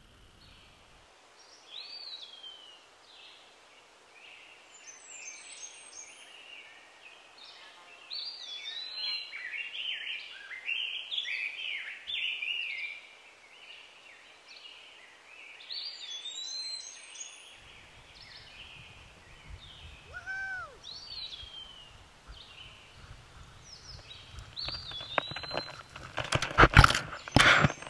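Songbirds singing: repeated short chirps, swooping whistles and high twittering, picked up by a camera lying on the ground. Near the end come loud knocks and scrapes as the camera is grabbed and handled.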